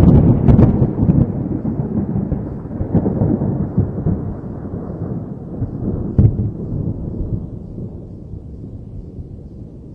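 Thunder: sharp crackling near the start, then a deep rumble that slowly dies away, with one more crack about six seconds in.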